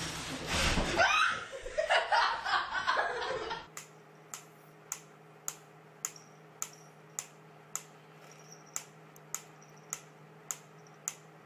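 A person laughing, then, after a cut about four seconds in, a wind-up pyramid metronome ticking steadily, just under two sharp ticks a second.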